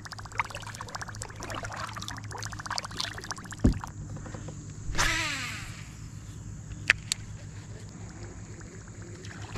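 Fishing tackle handled on a kayak: a fast, fine ticking, then a dull knock about three and a half seconds in. About five seconds in comes a cast, the line whirring off the baitcasting reel's spool and slowing down.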